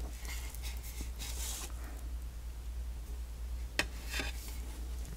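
Faint handling of a plastic model fuselage half being turned in the hands, with soft rustling and one light click a little under four seconds in, over a steady low hum.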